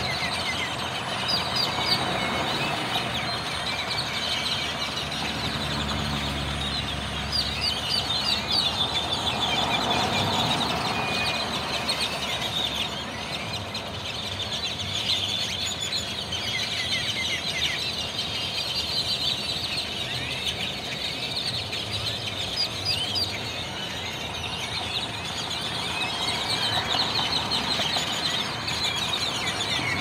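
Dense, unbroken chorus of chattering, whistling calls from a large flock of tordos (blackbirds) gathering in a tree to roost for the night.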